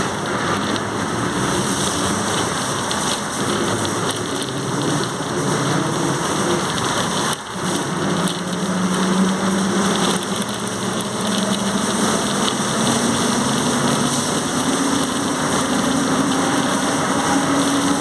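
Transmission of a Volkswagen 17.230 OD bus groaning loudly: a single tone that cuts out briefly about seven seconds in, then climbs slowly in pitch as the bus gathers speed, over heavy, steady road and running noise.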